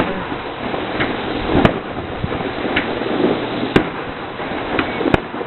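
Fireworks display going off: several sharp bangs, three of them louder than the rest, over a steady background noise. The reports echo around the valley.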